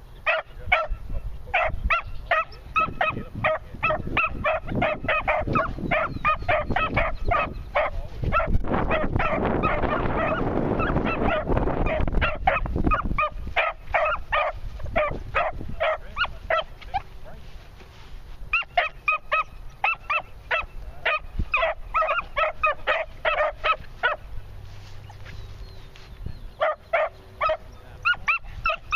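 Beagle pups yipping in quick runs of short high cries, several a second, while they work a scent with noses down: young hounds giving tongue on a trail. A rushing noise covers them for a few seconds midway.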